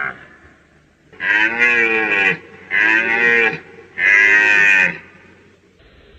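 Red deer calling: three drawn-out, moo-like calls, each about a second long with a slight bend in pitch, the third the loudest. The end of an earlier call is heard right at the start.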